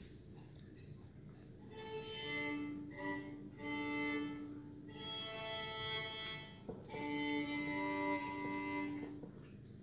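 Background music: a melody of held notes that comes in about two seconds in.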